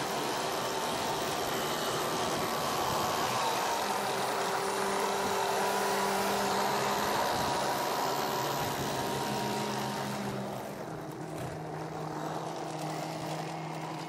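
Case TV450 compact track loader's diesel engine running steadily as the machine travels; about ten seconds in the sound gets quieter and the engine note drops slightly.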